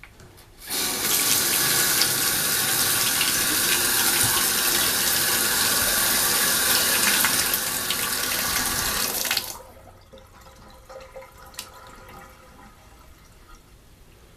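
Water running hard from a tub-and-shower valve, turned on with its newly replaced handle to test it. The flow starts about a second in and cuts off suddenly about nine and a half seconds in.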